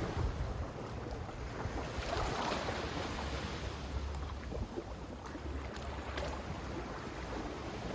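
Sea waves washing in, swelling and easing in slow surges with the biggest about two seconds in, over a low rumble of wind on the microphone.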